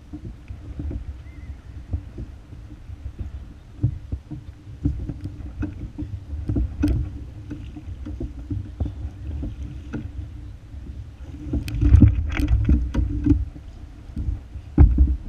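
Anchor rope being hauled in by hand aboard a plastic sit-on-top kayak. Irregular knocks and clicks of the rope and hands against the hull sound over a low steady rumble of water, with a cluster of louder knocks about twelve seconds in.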